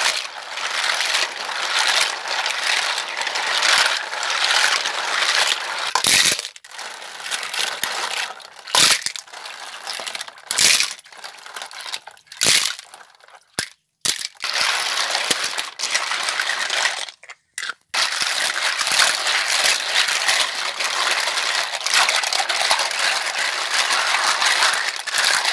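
Live undulated surf clams being scrubbed by hand in a plastic basin of water: shells clattering and grinding against one another with water sloshing, in several spells broken by short pauses.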